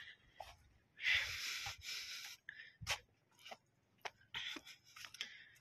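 Soft breathing close to the microphone: a breath about a second in and another near the end, with a few faint clicks between.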